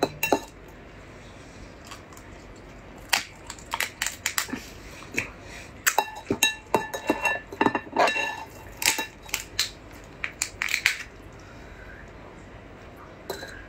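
Crab shell cracking and snapping as a whole crab is pulled apart by hand: irregular bursts of sharp cracks and crunches, starting about three seconds in and dying away a couple of seconds before the end.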